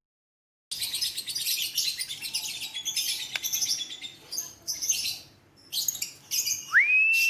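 Lovebird's ngekek: a fast, continuous high-pitched chattering trill that breaks off after a few seconds and then returns in shorter bursts. Near the end a single whistle rises and holds on one note.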